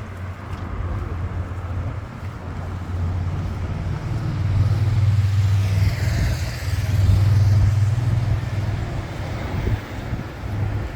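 City street traffic: the low rumble of cars going by, swelling twice, with one vehicle passing close about six seconds in.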